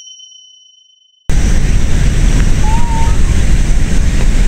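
A chime fades out over the first second, then loud wind buffeting the microphone cuts in abruptly with a low rumble. A faint short wavering call is heard about halfway through.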